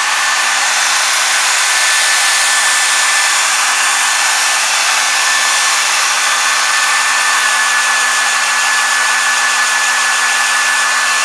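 Handheld hot-air blower running steadily, a rushing airflow with a thin motor whine and a low hum, heating and curing the heat-cure filler compound in a leather tear.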